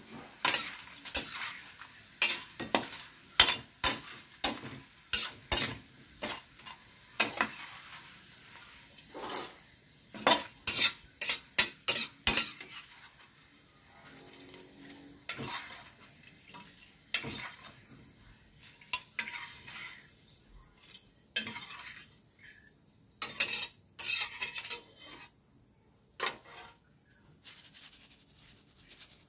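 Potato slices frying in hot oil in a large metal wok, with a light sizzle under sharp clinks and scrapes of a metal spatula against the pan. The clinks come thick and fast for the first dozen seconds, then fewer and more spread out as a wire mesh strainer lifts the fried potatoes from the oil.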